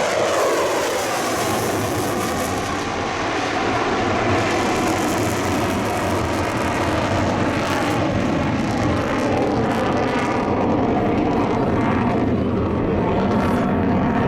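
F-35C's single Pratt & Whitney F135 afterburning turbofan on a close pass: the pitch falls as the jet goes by at the start, then a loud, steady jet noise whose hiss dulls as it moves away.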